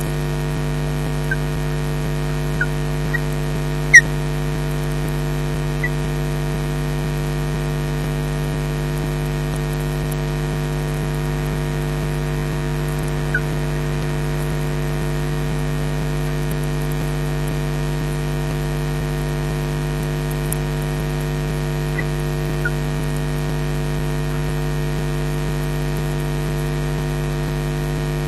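Steady electrical buzz and hiss from the nest webcam's audio feed, with a few faint brief ticks and one sharp loud click about four seconds in.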